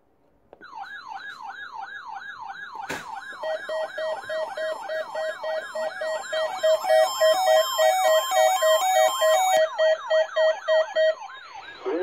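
Several NOAA weather radios sounding their alert alarms at once as the weekly test activates them: a siren-like falling sweep repeating about three times a second, joined a few seconds in by pulsed electronic beeps at several pitches. The alarms cut off about a second before the end.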